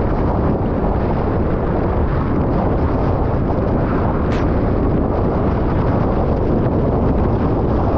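Wind buffeting the microphone together with water rushing past a windsurf board planing at speed: a loud, steady rush of noise with no let-up.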